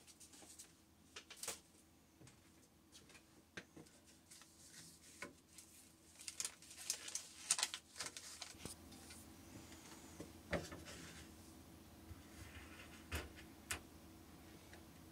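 Scattered light clicks, taps and rustles from chopped chocolate being handled on a wooden cutting board, thickest a few seconds in, over a faint steady hum.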